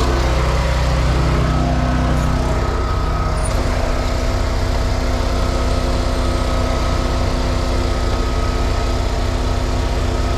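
Small gasoline engine of a service generator or charger running steadily, its deep rumble easing about two and a half seconds in.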